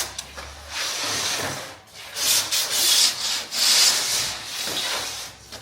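Repeated rubbing strokes, about five in a row, each about a second long with short pauses between.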